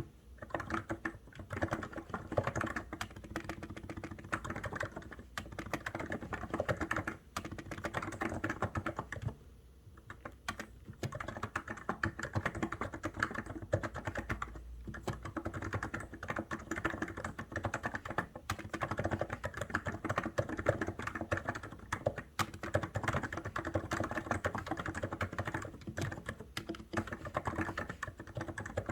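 Continuous fast typing on a COX Endeavour keyboard: a dense run of key presses with a short pause about ten seconds in.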